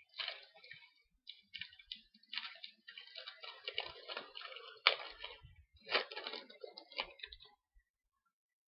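Foil trading-card pack crinkling and tearing as it is opened, with the stiff cards clicking against each other as they are handled. A few sharper snaps stand out in the second half, and the sound stops about a second before the end.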